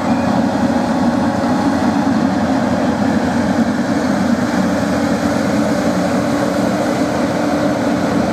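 A heavy machine's engine running steadily with a constant low hum, without distinct knocks or crashes.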